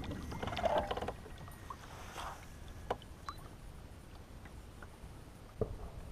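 Small knocks and clicks of gear being handled aboard a fishing kayak over a low steady rumble, with a cluster of clicks in the first second, a tick about halfway and a sharper knock near the end.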